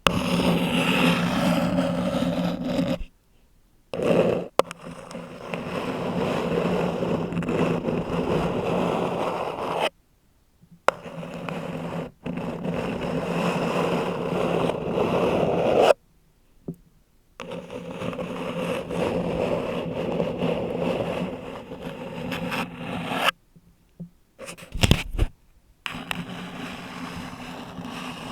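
Long XL 3D nails scratching on a paper cup and the bare Blue Yeti microphone, in continuous stretches of several seconds. The scratching is broken by abrupt silent breaks, about one at three seconds in, another at ten seconds, another at sixteen seconds, and a longer one with a couple of short scrapes near the end.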